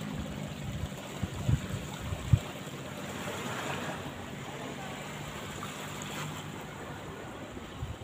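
Small waves washing on a sandy beach, with wind. A few sharp low thumps of wind buffeting the microphone come in the first two and a half seconds, the loudest just after two seconds, over a faint steady low hum.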